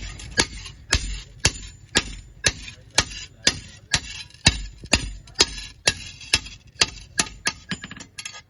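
Hammer striking an iron piece in a steady run of ringing blows, about two a second, coming faster near the end.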